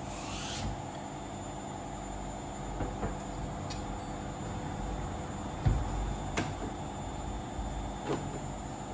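Soft handling sounds of a potted orchid in a wooden planter box: a few light knocks and clicks, the loudest a dull knock a little over halfway through, over a steady background hum.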